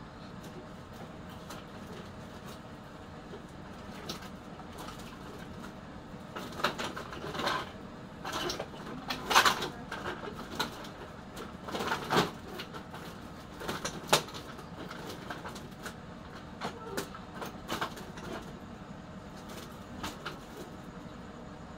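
Old computer motherboards knocking and scraping against each other as they are pushed down into a woven plastic sack. The irregular clatters bunch in the middle, over a steady background hum.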